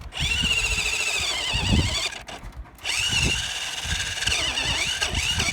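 Electric RC car motor whining under throttle in two runs with a short pause between, its pitch rising and falling as the throttle is worked, with tyre and chassis rumble underneath.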